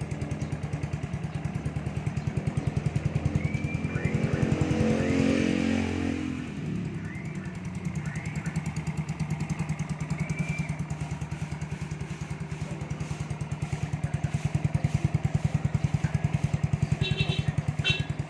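Yamaha Mio Soulty scooter's single-cylinder four-stroke engine idling through an MT8 aftermarket power pipe exhaust with stainless tip, with a steady pulsing beat. About four seconds in it is revved once, briefly, rising and then falling back to idle.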